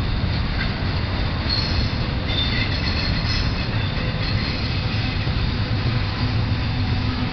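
Double-stack intermodal well cars rolling past with a steady rumble of steel wheels on rail. High-pitched wheel squeal rises over it about a second and a half in and fades after about three seconds.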